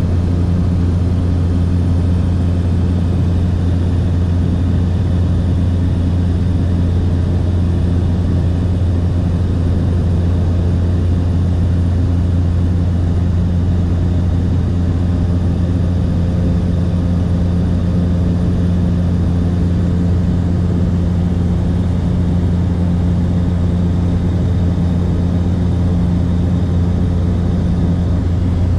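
Light propeller aircraft's engine and propeller running at steady cruise, heard inside the cabin as a loud, unchanging low drone.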